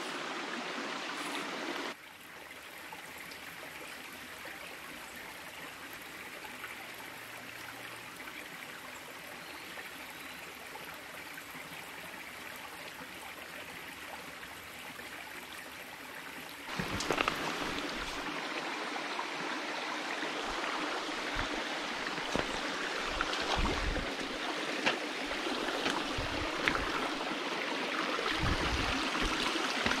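Small rocky stream running and trickling over stones. It drops quieter about two seconds in and comes back louder about halfway through, when scattered low thumps and knocks join it.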